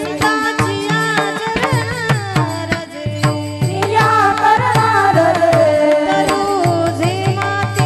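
Marathi kirtan music: a melody over a steady drone, with quick, even drum and cymbal strokes keeping the beat.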